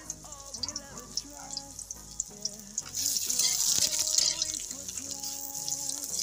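Garlic frying in oil in a wok, then a loud sizzle about three seconds in as sliced onions go into the hot oil and are stirred with a metal spatula. Background music runs throughout.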